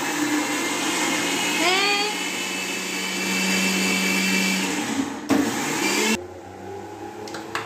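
Electric countertop mixer grinder running, a loud steady whir from its motor and steel jar. It cuts off about five seconds in, runs again for a short burst, then stops, leaving a quieter hum.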